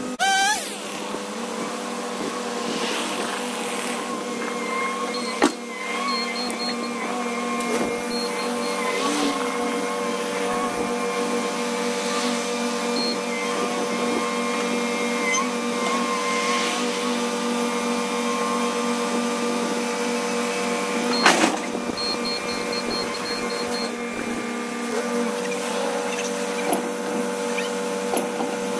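Bobcat T66 compact track loader running steadily, its diesel engine and hydraulics making a constant mechanical hum, with two sharp knocks, one about five seconds in and one about twenty-one seconds in.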